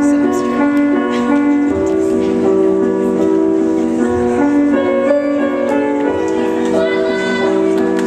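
Slow waltz music for ballroom dancing: sustained chords and melody, with a low bass note about every two seconds marking each bar.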